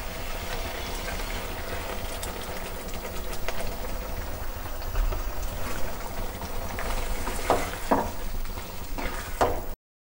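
Kebab gravy sizzling in a non-stick wok as yogurt goes in and a silicone spatula stirs it, with a few short scraping strokes near the end. The sound cuts off abruptly just before the end.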